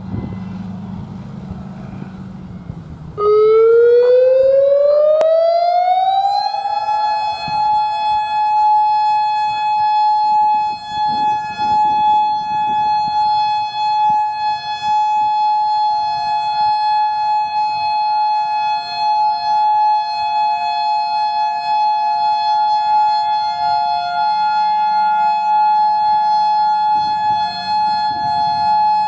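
Federal Signal Modulator 5020B electronic outdoor warning siren coming on loudly about three seconds in, its tone rising in pitch for about three seconds and then holding one steady tone. A second, slightly lower steady siren tone sounds alongside it, and a low hum is heard before the siren starts.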